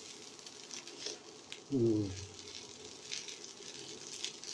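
Fried rice sizzling in a wok as a metal spoon stirs and scrapes through it, with scattered light crackles. A brief voiced sound about two seconds in.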